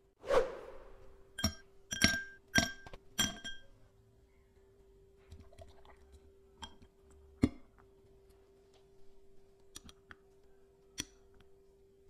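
Ice cubes dropped into a tall drinking glass: a brief rattle, then four ringing clinks of ice on glass about half a second apart. A quieter stretch follows with the faint pour of a thick blended dragon fruit milk drink from a shaker, and a few light knocks of glass and spoon.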